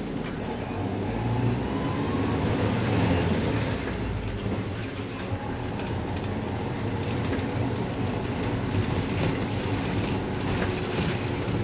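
Public light bus (green minibus) driving, heard from inside the cabin: a steady low engine and road rumble with scattered light clicks and rattles.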